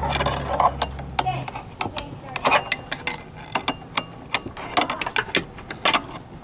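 Ratcheting wrench clicking in short, irregular runs as a bolt is turned under the hood. A low hum fades out in the first second and a half.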